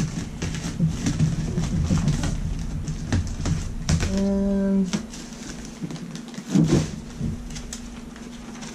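Camera and packing material being handled: rumbling rustle with clicks and knocks of crumpled packing paper and cardboard, then a short hummed note about four seconds in, and quieter scattered paper handling after it.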